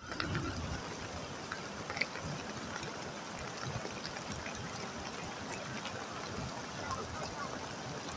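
Muddy floodwater from a burst embankment running over stones and rubble: a steady, low rushing and trickling, with a few small ticks.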